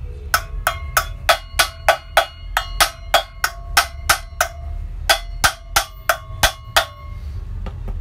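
A small hammer strikes the metal housing of a vacuum cleaner motor about twenty times, roughly three blows a second with a short pause midway. Each blow rings briefly with a metallic tone. The motor is being knocked apart to get at its bearings.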